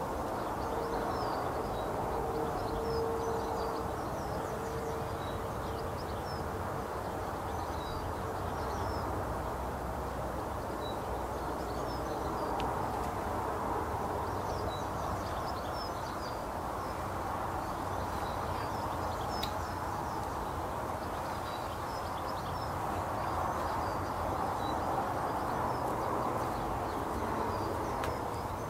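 Small birds chirping and twittering in short, scattered high calls over a steady outdoor background hum, with a brief steady low drone for a few seconds near the start.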